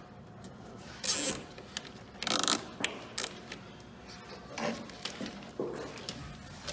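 Hand work on a truck's plastic headlight housing and wiring: two short rasping, ratchet-like bursts about one and two seconds in, followed by scattered clicks and light scrapes.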